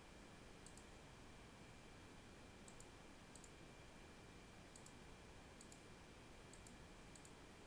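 Several faint, separate computer mouse clicks a second or two apart over quiet background hiss, as lines are selected in CAD software.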